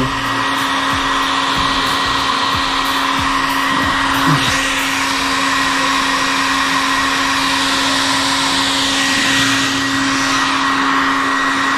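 Handheld hair dryer running steadily, an even rush of air with a constant hum, heating a vinyl motorcycle decal so it softens and lies flat over the edges and corners.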